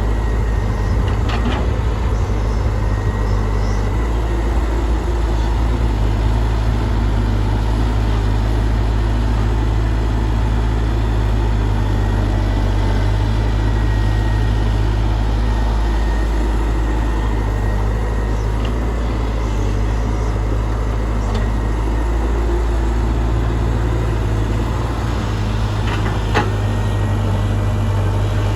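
Excavator's diesel engine running steadily with a low, constant hum, and a couple of short knocks near the start and near the end.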